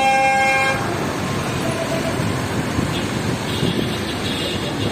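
Busy road traffic with a car horn held in one long honk that cuts off just under a second in, followed by a steady rush of passing vehicles.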